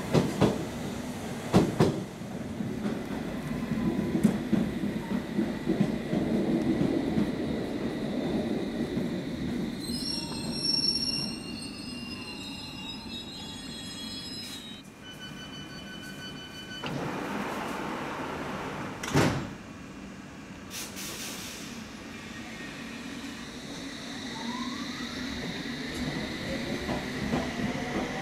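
London Underground S-stock train at the platform: a low running rumble, then about ten seconds in a run of electronic door-warning beeps and the sliding doors closing with a thump. Near the end the traction motors whine, rising in pitch as a train pulls away.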